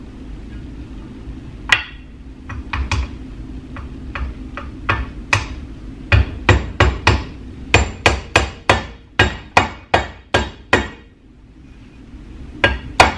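Hammer tapping new rubber seals into the Chevy Vortec 5.3 knock-sensor valley cover held in a bench vise. A few scattered taps come first, then a quick run of a dozen or so blows, a pause, and two or three more near the end.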